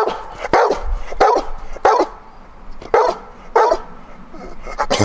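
Golden retriever barking on command, about six short barks spaced unevenly, the last near the end.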